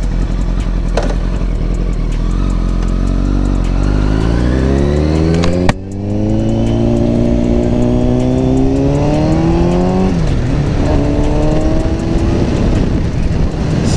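Motorcycle engine accelerating hard under load with a passenger aboard, revs climbing, then a gear change with a brief dip about six seconds in. It climbs again until about ten seconds in, drops off, then runs steadily.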